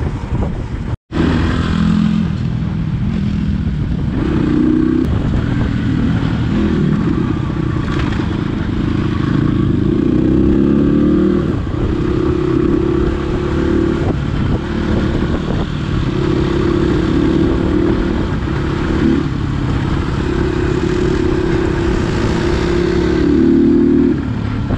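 Crossfire RM 250 dirt bike's single-cylinder engine running under way, heard from the rider's seat, its pitch stepping up and down with throttle and gear changes. A brief dropout about a second in.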